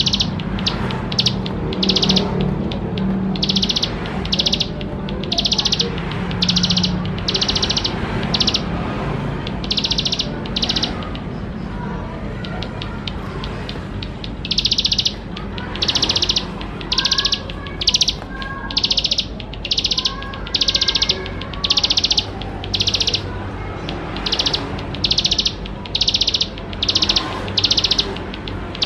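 Ciblek sawah (a prinia) singing: a long run of loud, buzzy, high-pitched trills, each about half a second, repeated with short gaps. Softer rising and falling chirps sound in the middle, during a pause in the trills.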